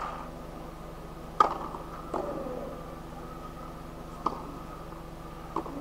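Four short sharp knocks of a tennis ball being bounced on the clay court before a serve, the first the loudest, over a faint steady hum.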